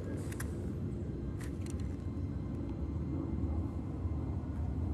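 Wind buffeting the microphone, a steady low rumble, with a few faint clicks about half a second and a second and a half in.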